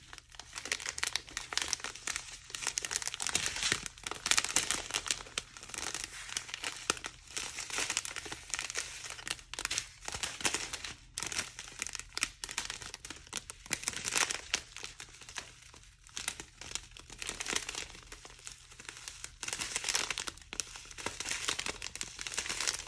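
Small plastic bags of round diamond-painting drills crinkling and rustling as they are handled, a continuous irregular crackle with brief pauses.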